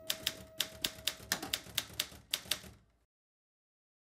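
Old manual typewriter typing: keys striking in quick, uneven succession, about four to five clacks a second, then the sound cuts off abruptly about three seconds in.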